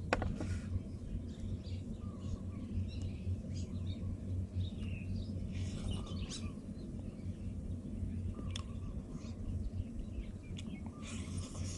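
Birds chirping over a steady low hum. Short crackly bursts come about six seconds in and again near the end as crisp deep-fried chicken drumsticks are torn apart by hand and bitten.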